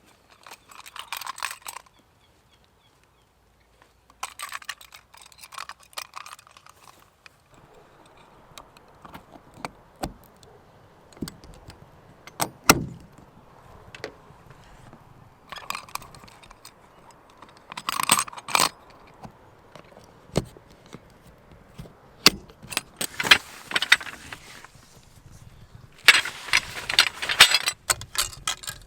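Tarp-pitching gear being handled: irregular bursts of crinkly rustling and jangling metallic clinks, with scattered sharp knocks and one louder knock about halfway through.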